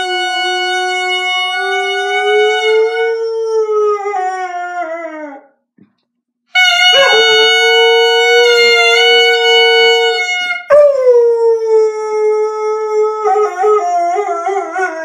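A dog howling in long, drawn-out notes. There are three howls, each held steady and then sliding down in pitch as it trails off, with a breath between the first two. The last howl wavers near the end.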